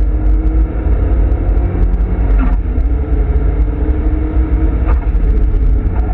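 Nissan Silvia S15 Spec R's turbocharged four-cylinder engine running hard under acceleration on a race track, with heavy road and drivetrain rumble, heard from inside the cabin.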